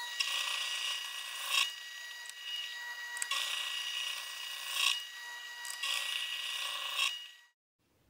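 A 1950s Benchmaster horizontal milling machine, with a 60-degree pointed cutter, cuts grooves into an aluminium block, three passes of about a second and a half each, over a steady high whine. The sound cuts off shortly before the end.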